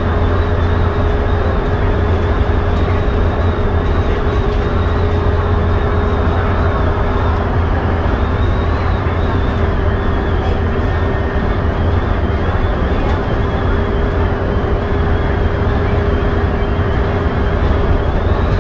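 Bus cruising at speed, heard from inside at the front: a steady low drone of engine and road noise, with a constant whine running through it.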